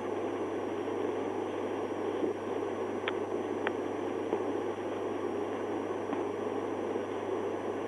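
Steady hiss with a low hum inside a parked police cruiser's cabin, with two faint clicks about three seconds in.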